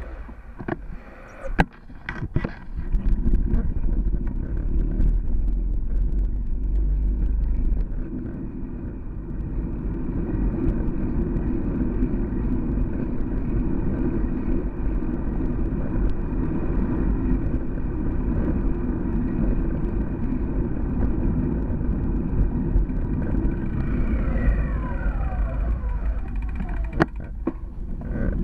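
Steady rumble of wind and road noise on a handlebar-mounted Cycliq Fly12 camera's microphone as a bicycle rides down a street among cars. There are a few sharp knocks in the first couple of seconds and again near the end, and a falling whine just before the last knocks.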